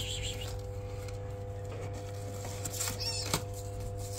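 Newborn kitten giving short, high-pitched mews that fall in pitch, about three seconds in and again at the end, over a steady low hum.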